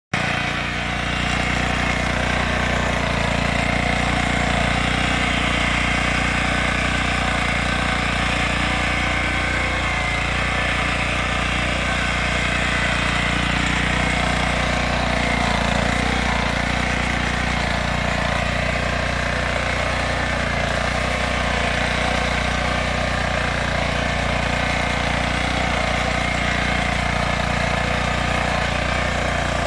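Lombardini engine of a Yağmur YET 320 digging machine running steadily at an even speed.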